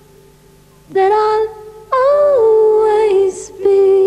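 A woman singing slow, long-held notes with short pauses between them: three notes, the middle one starting higher and falling in pitch partway through.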